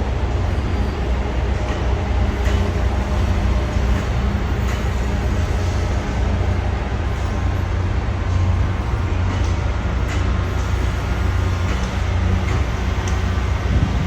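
Train standing at a station platform, running steadily: a constant deep rumble with a steady hum above it and a few faint clicks.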